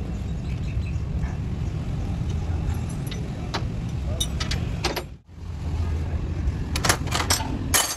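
Sharp metallic clinks, like hand tools knocking on metal, scattered over a steady low rumble and coming thickest near the end. The sound cuts out abruptly for a moment about five seconds in.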